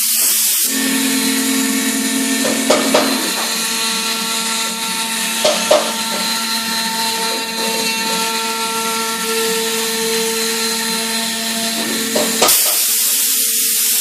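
Large CNC router spindle running steadily and cutting into MDF board, a steady whine over the noise of the cut, with a few brief clicks. About a second and a half before the end the sound turns into a brighter hiss.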